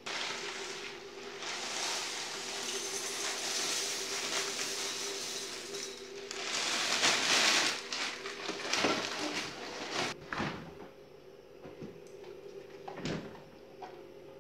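Dry cornflakes rustling and pattering as they are poured out of the bag into a bowl, for about seven seconds and loudest near the end of the pour. A few sharp knocks and clicks follow, of things being set down on the kitchen counter.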